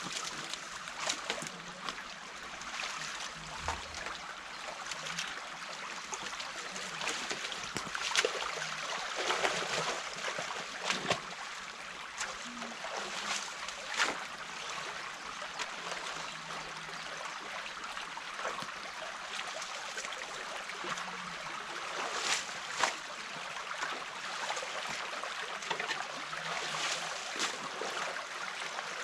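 Water running and trickling through a breached beaver dam, steady throughout, with a few brief sharp sounds over it.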